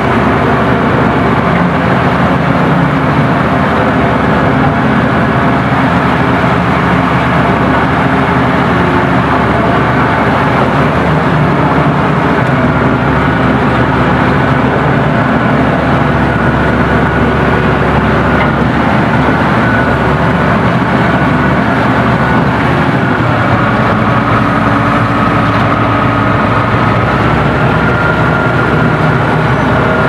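Komatsu bulldozer's diesel engine running steadily while the machine works, heard from the operator's seat. A thin whine above the engine steps up slightly in pitch in the second half.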